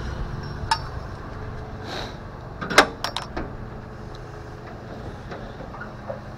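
Boom tow truck's engine idling steadily, with several sharp metal knocks from gear being handled, the loudest a clank about three seconds in.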